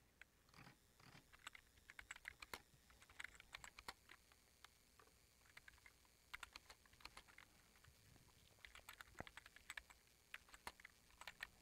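Faint typing on an old iMac keyboard: irregular key clicks, slightly quiet.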